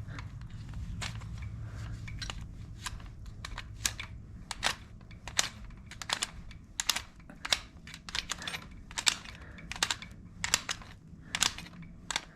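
Hand tools being handled while working on the ATV's carburetor choke: a run of sharp, irregular clicks, about two a second.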